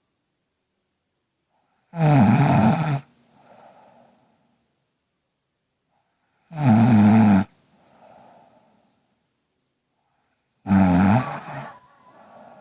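A girl snoring loudly in sleep: three heavy snores about four and a half seconds apart, each about a second long and followed by a softer breath.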